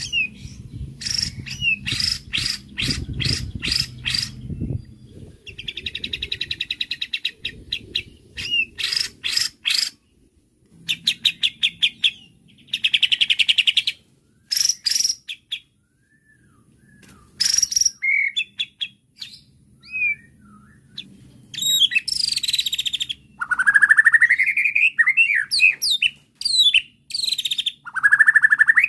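White-rumped shama (murai batu) singing a loud, varied song in separate phrases: rapid trains of sharp clicks, buzzy trills and gliding whistles, with short pauses between them. It is an agitated lure song of the kind played to provoke another shama into answering.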